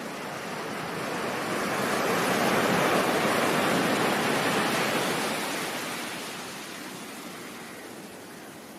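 Ocean surf as a steady rush of noise: one wave swells to its loudest about three seconds in, then slowly draws back and fades.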